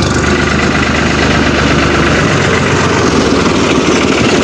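Farm tractor's diesel engine chugging steadily as the tractor, towing a trailer, drives up and passes close by.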